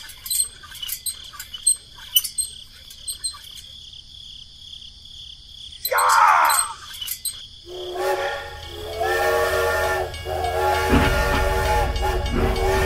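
Toy steam locomotive's electronic whistle sounding long, chord-like toots, starting about two-thirds of the way through, with a low rumble joining near the end. Before it come light scattered clicks and one short squeal.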